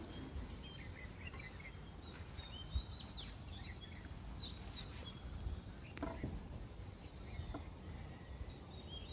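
Birds chirping at dusk: many short calls and quick whistling glides, scattered and overlapping, over a low rumble of outdoor background noise. There is a soft low thump about three seconds in and a sharp click about six seconds in.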